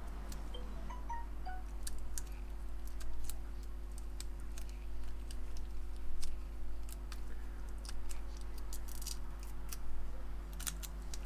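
Scattered light clicks and taps of small tools working the adhesive and flex cable of an iPhone XS battery, over a steady low electrical hum.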